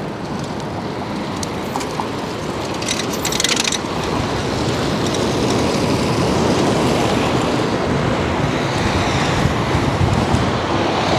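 Wind rushing and buffeting over a microphone fitted with a furry 'dead cat' windshield while cycling: a steady noisy rush with a gusty low rumble, growing a little louder toward the end. A short hiss cuts through about three seconds in.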